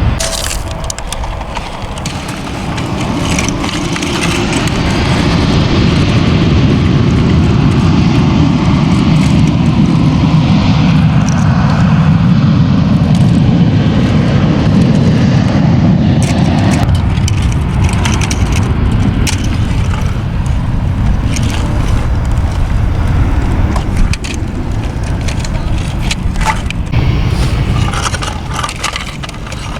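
Jet airliner's engines rumbling, swelling up over a few seconds, holding loud, then fading about halfway through. Scattered clicks and scrapes of toy trucks in gravel sound over it.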